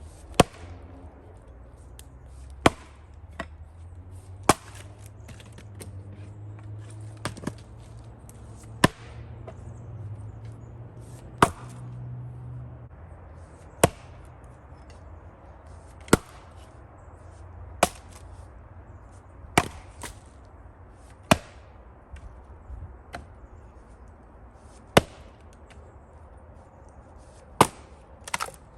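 Axe blows splitting a firewood round by hand: about a dozen sharp chops, mostly one every two or three seconds.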